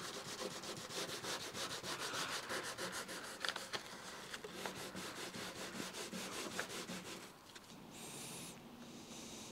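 Sheet of Japanese dry sandpaper rubbed by hand over dried, rough touch-up paint on a car's lower body panel, in quick, even back-and-forth strokes. The sanding stops about seven seconds in.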